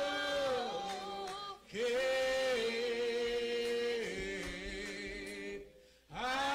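Church congregation singing a hymn a cappella in the slow, drawn-out old-style manner, each syllable held for seconds and sliding between pitches. The singing breaks off briefly twice, about a second and a half in and near the end.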